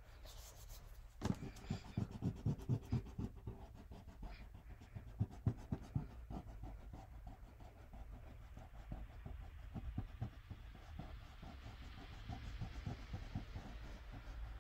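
Eraser rubbing back and forth on drawing paper, erasing pencil lines. Quick strokes come about four a second early on, then settle into lighter, steady rubbing.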